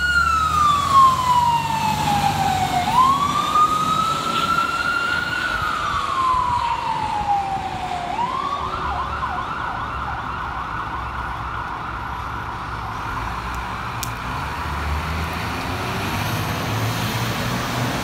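Fire engine's Whelen 295 electronic siren sounding a slow wail that falls, rises and falls again, then switching to a fast yelp about eight seconds in that keeps going, a little fainter as the truck moves off down the street.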